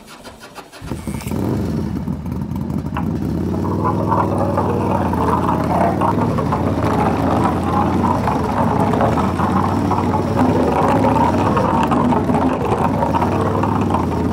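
Small DC motor of a homemade bottle-cap toy three-wheeler whirring steadily as it drives and drifts across a wooden tabletop. It starts up about a second in, and its pitch wavers early on as the toy turns.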